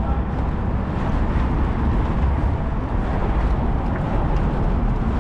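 Steady city street noise with a heavy low rumble, typical of traffic on a busy street.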